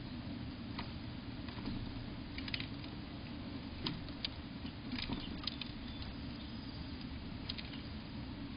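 Scattered light clicks and scratches from a squirrel moving on the rim of a plastic storage tote, over a steady low background hum.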